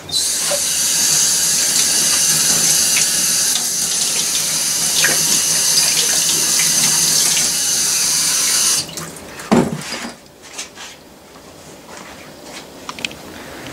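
Water running from a utility-sink faucet over cast-iron lathe change gears, rinsing off the mess from electrolysis rust removal. The tap shuts off suddenly about nine seconds in, followed by a few light knocks.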